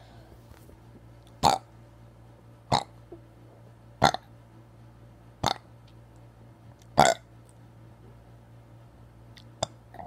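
A boy burping over and over, five short burps about one and a half seconds apart, then a pause.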